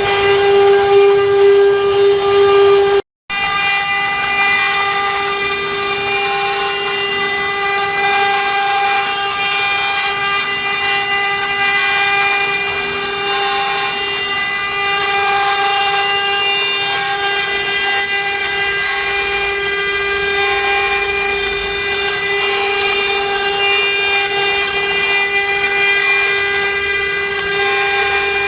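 CNC router spindle running at a steady speed with a constant whine, carving wood; the sound cuts out for a moment about three seconds in.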